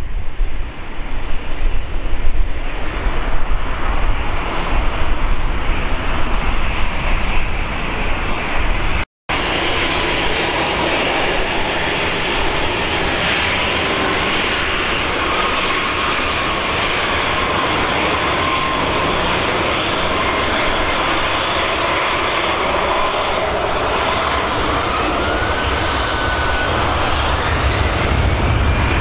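Wind buffeting the microphone with a low rumble. After a brief dropout about nine seconds in, the steady noise of a jet airliner's engines, with a whine that wavers and rises near the end.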